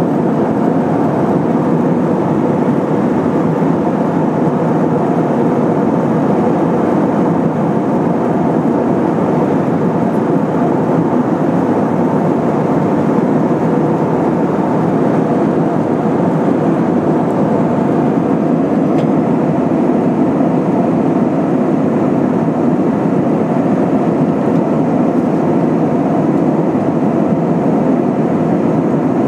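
Steady roar of jet engines and rushing air inside the cabin of an Airbus A320-232, powered by IAE V2500 turbofans. It holds at an even level throughout.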